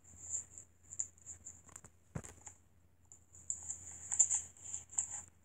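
Handling noise from a phone camera being fumbled and repositioned: an irregular run of soft rubs and taps, with one sharp click about two seconds in.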